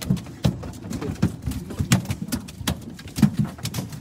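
Irregular knocks and low thumps of footsteps and gear handling on an aluminum boat's diamond-plate deck.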